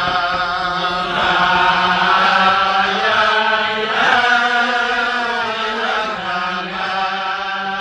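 A group of men singing a Chasidic niggun together, in long held notes that glide from one pitch to the next.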